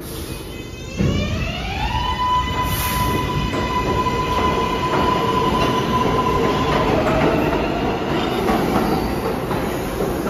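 New York City subway train on the Lexington Avenue line running past on the tracks: a loud rumble that comes on suddenly about a second in, with an electric whine that rises in pitch and then holds steady.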